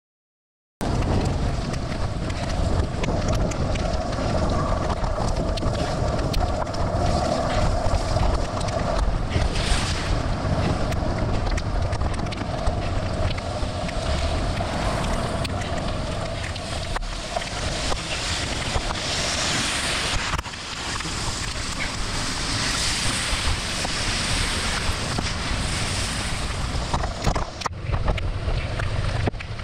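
Wind buffeting the microphone of a bicycle-mounted camera riding in the rain, a loud, steady rushing rumble that cuts in abruptly about a second in. A higher hiss of water off the wet road swells a few times in the second half.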